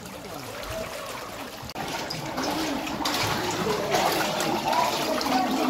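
Running water rushing and splashing around the feet of people wading through a shallow stream inside a narrow stone tunnel, getting louder about two seconds in and again a second later.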